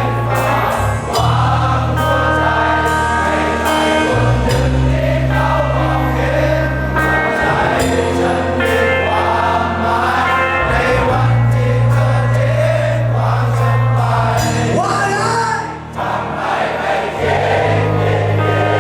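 Live band music with a bass line that holds each note for a few seconds, under singing by several voices together.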